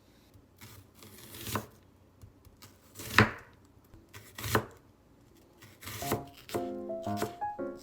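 Kitchen knife cutting food on a cutting board: four firm cuts about a second and a half apart. Light background music comes in near the end.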